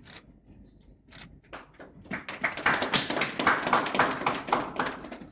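Small audience clapping: a few scattered claps at first, then about two seconds in a burst of applause from a group of people that lasts about three seconds and thins out near the end.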